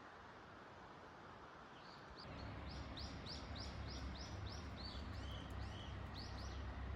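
A songbird sings a fast series of repeated high, arched notes, about three a second, starting about two seconds in. A low steady rumble comes up at the same moment beneath the song.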